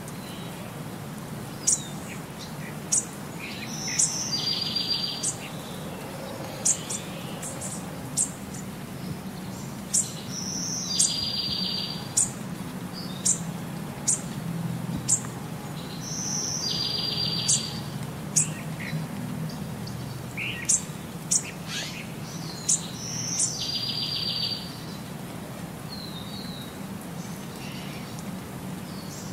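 Bird chirps with a rapid high trill, the same pattern repeating about every six seconds like a looped track, over a steady low hum.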